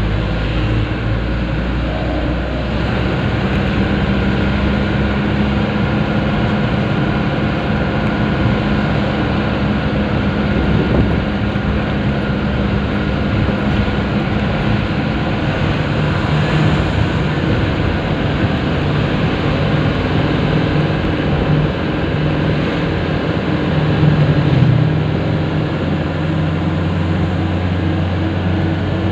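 Heavily laden truck's engine running steadily while driving, heard from inside the cab with road noise; the engine note shifts in pitch a few times as the speed changes.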